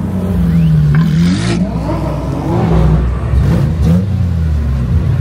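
Car engines revving, the pitch held for a moment and then climbing and dropping several times with the throttle blips, over the steady run of engines nearby.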